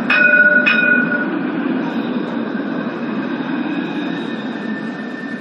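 Tram sounding two quick rings of its warning bell, then running on its rails with a steady low rumble that slowly fades. A thin steady whine comes in about halfway.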